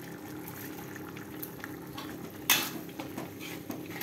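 Ground chili paste frying in oil in a wok, sizzling steadily with small pops. About two and a half seconds in, a sharp scrape of the metal spatula against the wok stands out, with lighter clinks of stirring around it.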